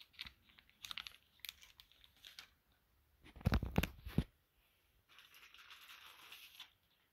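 Hands handling plastic model-kit parts and their packaging: scattered clicks and crinkles of plastic, a cluster of loud thumps about three and a half seconds in, then a couple of seconds of plastic bag rustling.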